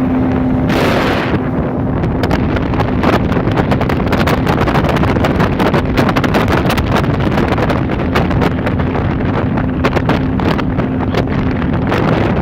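1989 Yamaha 40 hp two-stroke outboard running steadily, pushing a jon boat under way, with heavy wind buffeting on the microphone. A brief rush of hissing noise comes about a second in.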